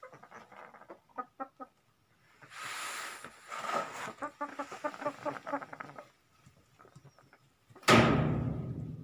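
A sleeping domestic hen making runs of short, soft clucking notes, with a brief rustle about three seconds in. About eight seconds in there is a sharp thump, the loudest sound, followed by a low rumble.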